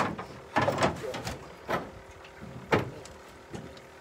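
Irregular clunks and scrapes in a small aluminum boat, about six in four seconds, the sharpest at the very start and another strong one near the three-second mark.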